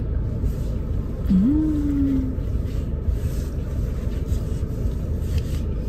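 Steady low rumble inside a car cabin, with faint rustling. A short voice-like tone rises and holds for about a second, starting about a second and a half in.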